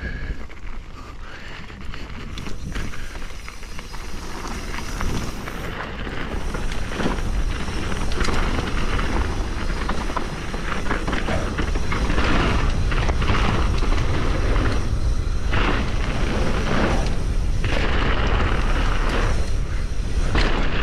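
Wind buffeting a chest-mounted GoPro's microphone as a mountain bike rolls down a dirt trail, with tyre noise and knocks from bumps. It grows louder as the bike picks up speed, then stays loud.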